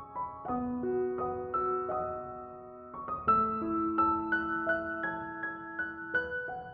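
Gentle piano music: single notes and soft chords struck every half second or so, each ringing on and slowly fading.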